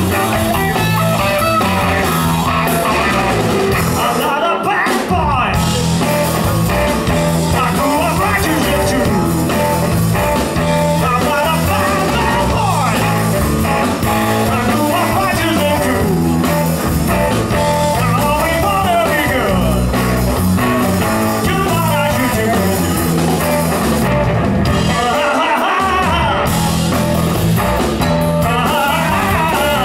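Live blues-rock band playing loudly: electric guitar with bending lead lines over electric bass and a drum kit.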